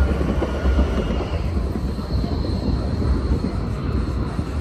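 Tram running along the street with a steady low rumble and a faint high whine.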